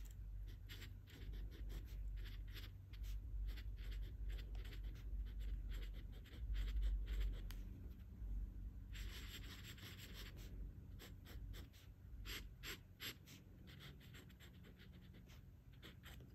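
Glass dip pen nib scratching on notebook paper in many short strokes as words and lines are written, with a longer continuous scratch about nine seconds in, over a low hum.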